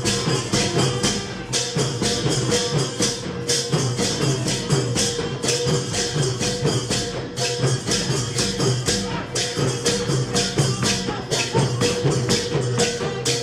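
Thai long-drum (klong yao) band playing live: long drums and small hand cymbals keep a fast, even beat, with a long held note from a wind instrument over it.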